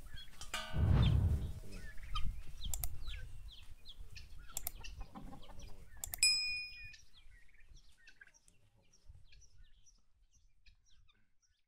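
Hens clucking close by, loudest about a second in, with small birds chirping throughout. A short bell-like ding comes about six seconds in, and the sounds fade away over the last few seconds.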